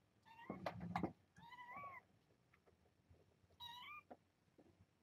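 A young kitten, about three and a half weeks old, mewing three times in short high calls that rise at the end, the first two close together and the third about two seconds later. A few sharp clicks come during the first mew.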